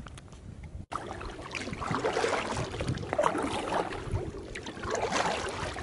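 Water splashing and trickling as a canoe paddle dips and pulls through the lake water, in a few uneven swells. Before that, briefly, low wind rumble on the microphone.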